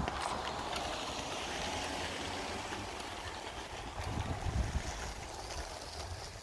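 Wind buffeting the microphone: a gusty low rumble under a steady rushing hiss that slowly fades.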